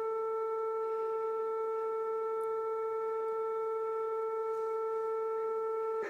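Emergency-alert attention tone from a mock EAS alarm: one steady electronic note at a fixed pitch, cutting off abruptly near the end.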